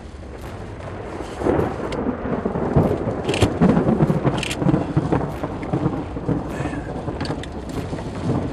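Thunder rumbling through a severe thunderstorm, swelling about a second and a half in, with rain noise and scattered sharp ticks.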